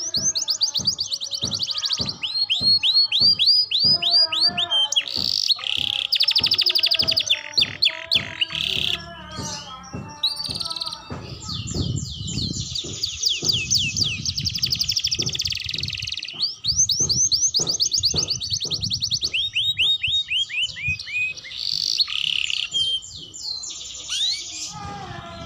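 Young domestic canary singing its practice song: long phrases of very fast repeated trills and rolls, each phrase changing to a new note type after a few seconds, with short pauses between.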